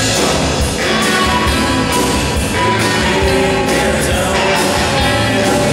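Live rock band playing, with a baritone saxophone carrying a melodic line over strummed acoustic guitar and electric guitar.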